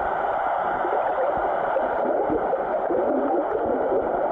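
Steady, muffled water noise with a churning, gurgling texture, as picked up by a camera underwater.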